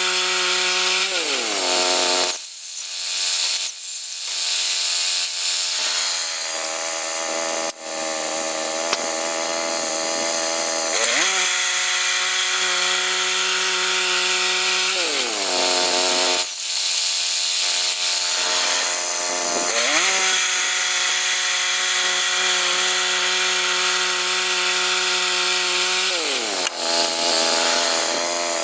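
The gas engine of a log-milling saw runs at high speed while sawing a pine log into lumber. It winds down about a second in, again midway and near the end, and climbs back to full speed between cuts.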